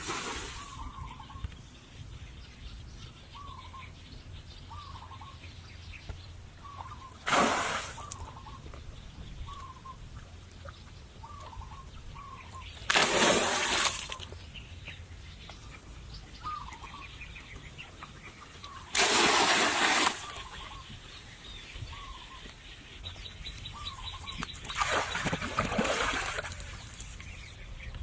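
Birds chirping in short, repeated calls, broken by four loud rushing noises: a brief one about seven seconds in, then three of a second or more, the last fading out slowly.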